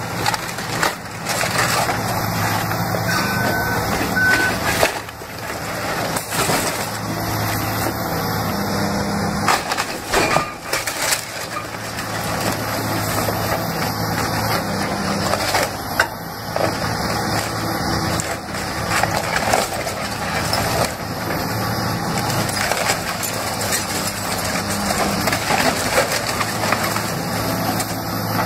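Caterpillar 336E hydraulic excavator running while its bucket tears into a wood-framed house: repeated cracking and splintering of timber and debris crashing down, over the steady sound of the machine.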